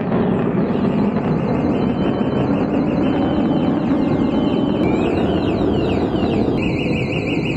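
Jet aircraft passing overhead, a steady broad roar, with high warbling chirps repeating above it from about a second in.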